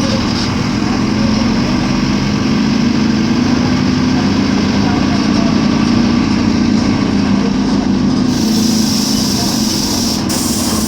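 Mercedes-Benz OF-1418 bus's diesel engine running with a steady low drone that swells a little in the middle.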